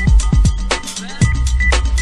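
Background music with a steady drum beat: deep kick drums, sharp snare-like hits and a sustained low bass.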